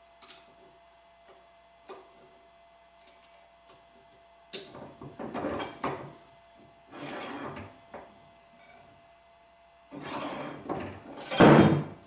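Metal parts of a Famco No. 3 arbor press being worked loose by hand: a few faint clicks, then a sharp metal knock about four and a half seconds in, followed by three bouts of rough scraping and rattling, the loudest near the end.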